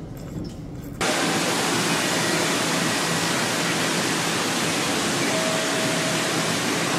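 Steady rushing noise of running water that starts suddenly about a second in.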